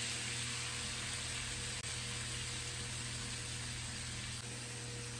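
Pumpkin leaves sizzling in hot oil in a kadai, a steady hiss.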